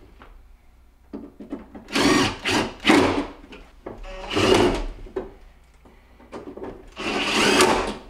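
Cordless drill/driver driving the screws into a refrigerator freezer's back panel, in four short bursts; the last runs about a second.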